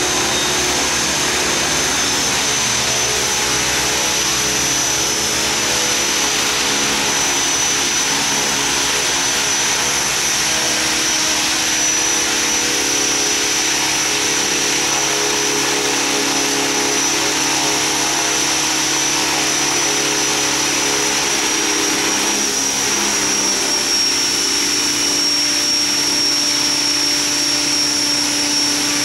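Align T-Rex radio-controlled model helicopter running: a steady high motor whine over the hum of the spinning rotors, the pitch easing slightly lower about three-quarters of the way through.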